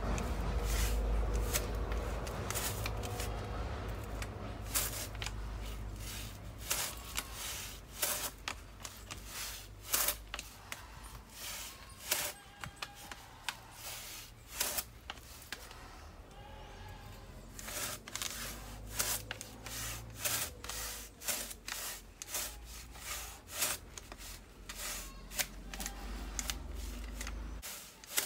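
Hand crosscut saw cutting into a palm trunk: a run of irregular rasping, clicking strokes as the teeth bite the fibrous wood. A low rumble lies underneath, stronger at the start and again in the latter part, and stops just before the end.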